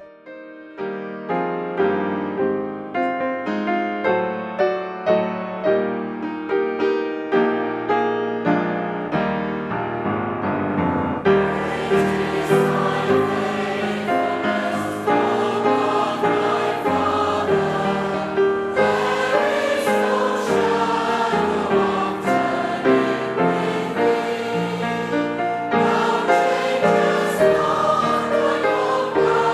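A hymn played on piano: the piano plays alone for about the first eleven seconds, then a choir comes in singing with it.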